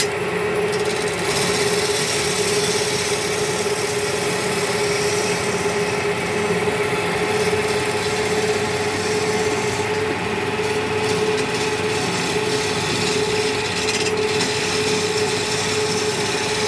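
Wood lathe running with a steady hum while a hand-held turning chisel cuts the spinning wooden table leg, a continuous rough scraping of wood being shaved off.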